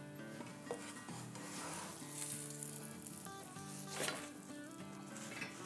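Faint sizzling of hot cooking, with soft background music under it and a light scrape of a silicone spatula against a plate about four seconds in.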